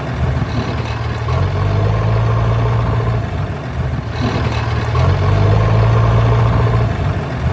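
Tractor engine idling with a steady low hum, swelling louder for a couple of seconds twice.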